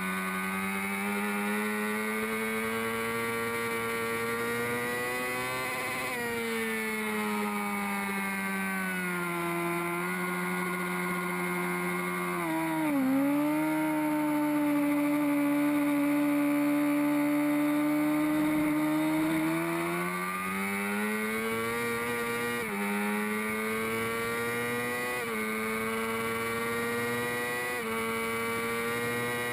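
Honda CBR600RR inline-four engine at racing revs. It pulls up in pitch, eases off and holds a steady, louder note through a long corner, then climbs again with three quick upshifts, each a sudden drop in pitch before it rises again.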